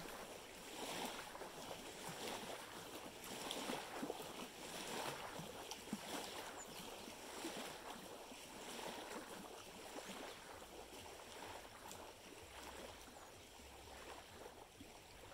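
Small waves lapping on a sandy shore, a soft wash of water coming about once a second.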